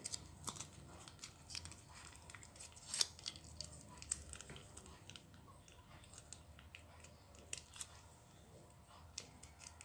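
Faint crinkling and scattered light clicks of a plastic sachet of chocolate sweetened condensed milk being handled and squeezed out into a blender jar.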